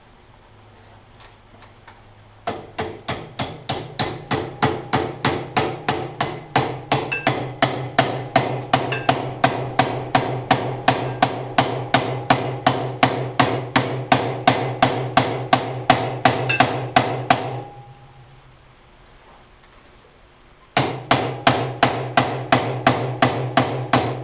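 Hammer blows on metal, about three a second, in a long steady run, then a pause of about three seconds and a second run. Each strike leaves a short ring.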